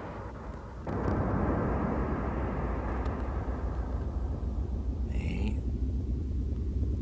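A steady low rumbling noise starts abruptly about a second in and runs on, with a brief higher hiss about five seconds in.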